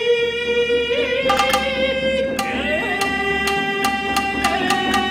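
Nagauta accompaniment for Japanese classical dance: a long held melodic line, with sharp percussive notes entering about a second in and repeating at a steady pace over sustained tones.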